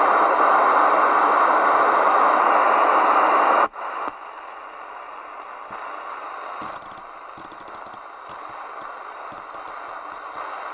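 Midland Alan 8001 CB radio receiver hissing with loud static, which cuts off sharply about three and a half seconds in. After that a much quieter hiss is left, with scattered crackles and clicks.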